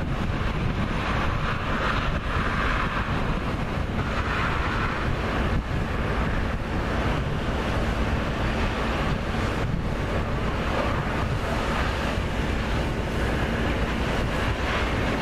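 Wind buffeting the microphone over a steady rushing noise, with no distinct sounds standing out.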